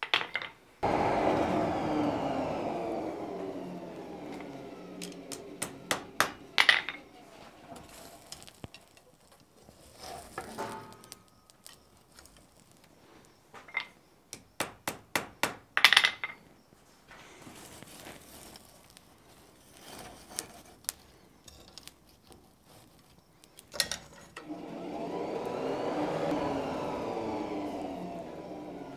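Blacksmith's hammer striking hot iron stock on an anvil in several short runs of quick blows, with metallic clinks between them. Twice, a coal-forge blower whirs up and then winds down in pitch as it coasts off, fanning the fire.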